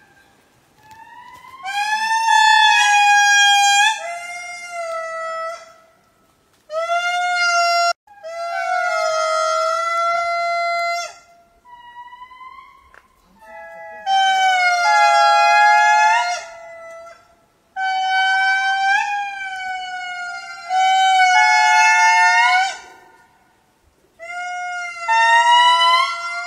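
Lemurs calling: a chorus of long wailing calls, each one to three seconds long, bending up and down in pitch, with two voices overlapping at times and short pauses between bouts.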